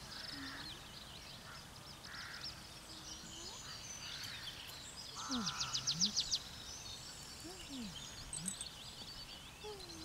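Small birds chirping and whistling, with a fast trill of even notes a little past the middle. A few soft, low vocal sounds glide up and down beneath them.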